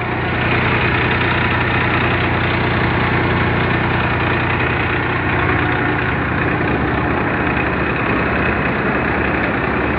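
Tractor diesel engine running steadily at about 1800 rpm, with the Mayur thresher it drives running along with it as it threshes isabgol. The engine is under no load, its speed even throughout.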